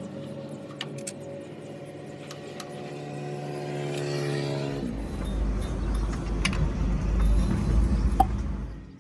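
A motor running: a steady hum that creeps slightly up in pitch, then about five seconds in drops into a louder, rougher low rumble that stops abruptly near the end.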